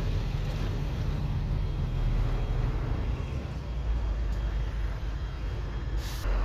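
Diesel engine of a heavy crane lorry running as the truck drives in and pulls up, a steady low rumble, with a short hiss near the end.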